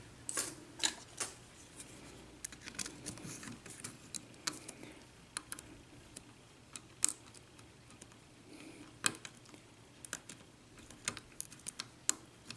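Lock pick working the pins of a 5-pin Corbin euro cylinder: light metal clicks and ticks at irregular intervals, with a few sharper clicks toward the middle and end, as pin 5 is worked to set.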